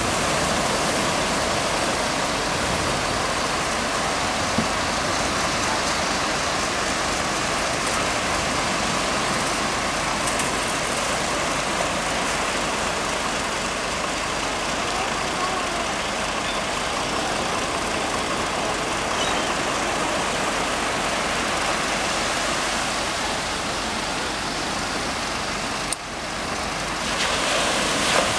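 Steady roar of ocean surf breaking on a sandy beach, with a brief drop in level near the end.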